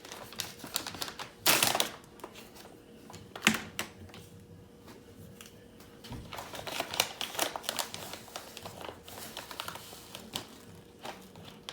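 Chia seeds being measured out with a spoon and tipped into a glass mason jar: irregular small clicks and rattles of spoon, seeds and glass, with a short rustling burst nearly two seconds in and a sharp knock about three and a half seconds in.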